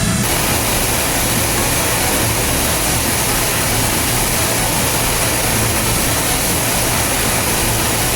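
Machining center cutting metal: a steady, loud rushing noise with a high whine that starts and stops abruptly.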